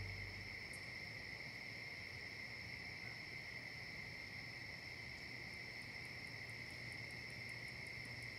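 A chorus of night insects trilling steadily at two pitches, with a faint quick ticking joining in about five seconds in.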